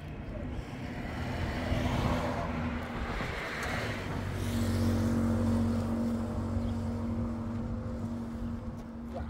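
A motor vehicle passing on the road, its rush swelling and fading over the first few seconds, then an engine running with a steady hum.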